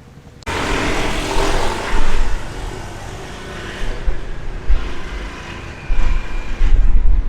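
A motor vehicle running, starting suddenly about half a second in, with wind buffeting the microphone in gusts.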